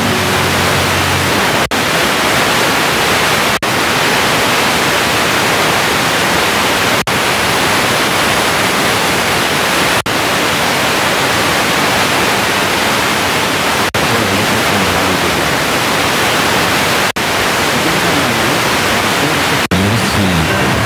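FM radio static between stations: a loud, steady hiss from a phone's FM tuner as it is stepped up the dial, cutting out briefly at each step, seven times. A station's music fades out about a second in, and another faintly comes in just before the end.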